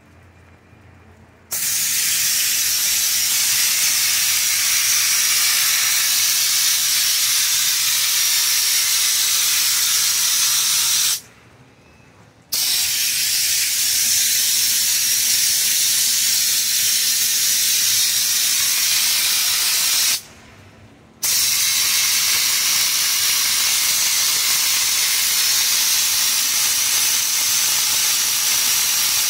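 Air-powered Raptor bed-liner spray gun hissing as it sprays liner, in three long trigger pulls of about ten and eight seconds, each separated by a pause of about a second.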